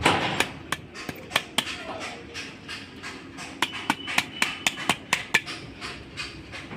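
Repeated hammer blows on a truck propeller shaft's universal joint while a new cross and its bearings are being fitted. The blows come in quick runs of a few a second, thinning out briefly around the middle before another quick run.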